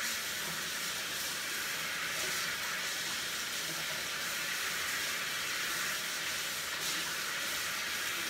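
Kitchen sink tap running steadily, hands being rinsed under the stream.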